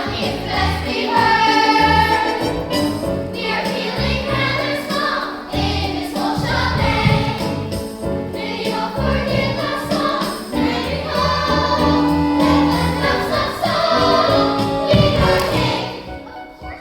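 Musical theatre cast singing together in chorus over instrumental accompaniment, the music dropping away near the end.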